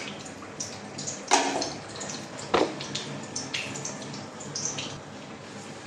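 Kitchen clatter as oil is spooned from a glass jar into a steel kadai: a few light clinks and two clear knocks, about a second and a half and two and a half seconds in, over a steady watery hiss.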